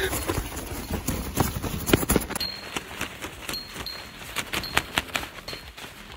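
Hands slapping and scratching the side of a tent, an irregular flurry of rustling hits on the fabric, loudest in the first two seconds.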